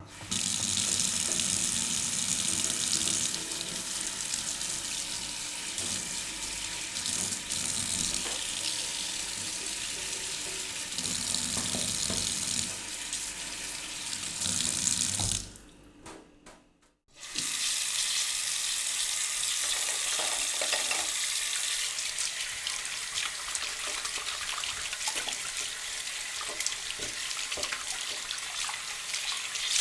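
Water running from a tap into a sink while hands are washed under it, a steady splashing stream. The water stops about halfway through for a second or two, then runs again.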